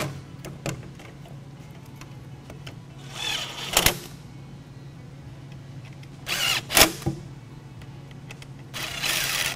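Makita LXT cordless right-angle drill driving T20 Torx screws into a plastic dash bezel, in three short runs of about a second each.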